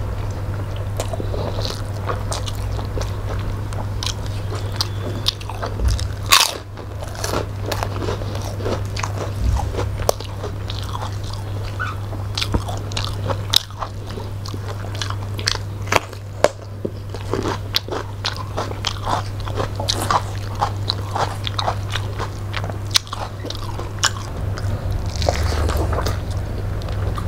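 Close-miked chewing of two people eating rice and fish with their hands, full of irregular wet mouth clicks and smacks. A steady low hum runs underneath.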